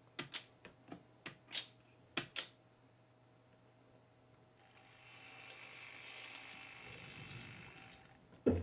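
A quick series of sharp clicks as N-gauge turnout (point) machines snap over, switched by a microcontroller point controller. From about halfway through, a model railcar runs on a PWM controller with a steady whirring hum, and one more sharp click comes near the end.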